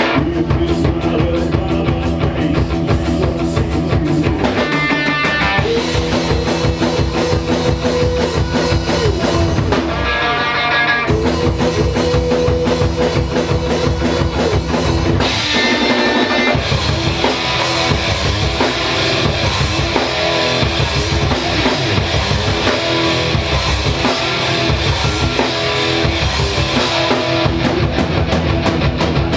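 Live rock band playing loud, with drum kit and guitar; the bass and drums drop out briefly about five seconds in and again about ten seconds in.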